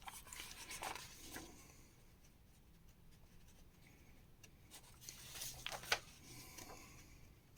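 Paper magazine pages rustling faintly as they are handled and turned, in two bouts: one near the start and one around five to six seconds in that ends in a sharp crackle.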